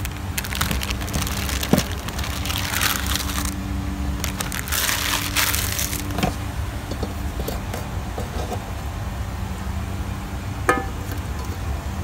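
Dry instant-noodle blocks and their crinkly foil wrapper rustling and crackling as they are handled and put into a pot of simmering water on a portable gas stove, in two spells during the first half, with a few light clicks and a steady low rumble underneath.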